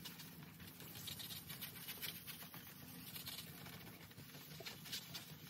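Hand wet-sanding of a painted wing surface with 1500-grit sandpaper on a foam block: faint, irregular scratching strokes.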